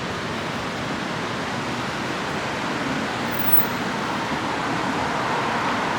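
Steady traffic noise: an even rushing hiss with no distinct events.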